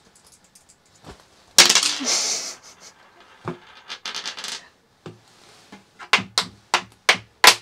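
Dice thrown onto a wooden backgammon board, rattling for about a second, a second and a half in. Near the end comes a quick run of sharp clacks as the plastic checkers are picked up and set down on the board.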